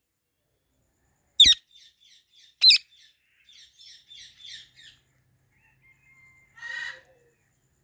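Ringneck parrot giving two loud, shrill screeches that sweep downward, about a second apart, then a run of soft chirps and one short call near the end.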